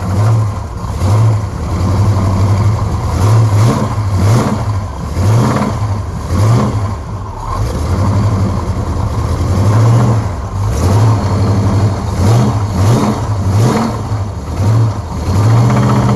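Supercharged small-block Chevy V8 running and being blipped in repeated short revs, the note rising and falling about once a second. The engine has developed a rod knock.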